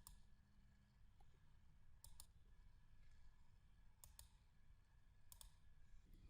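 Faint computer mouse clicks over near silence: four of them, each a quick double tick, coming every one to two seconds.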